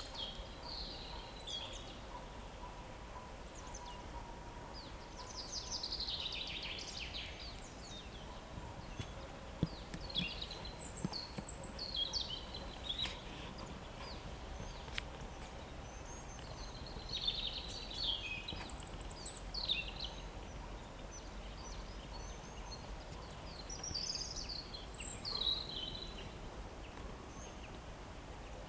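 Early morning birdsong: several birds singing short chirping and trilling phrases, on and off throughout, over a faint steady background noise.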